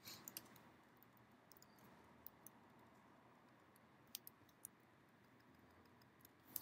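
Faint, scattered computer keyboard keystrokes, a few short clicks at a time, over near-silent room tone.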